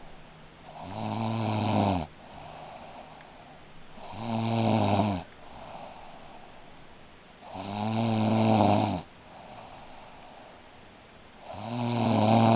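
A sleeping woman snoring: four loud, pitched snores about every three and a half seconds, each lasting a little over a second, with a quieter breathy sound between them. The last snore is still going at the end.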